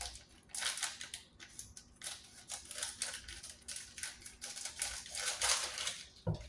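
Scissors cutting a plastic food bag all the way open, the plastic crinkling and crackling in a quick string of short snips and rustles.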